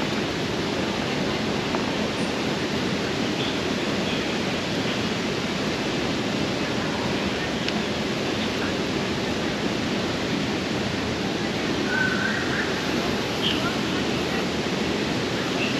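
Steady rushing and splashing of water from a large plaza fountain, running evenly with no breaks.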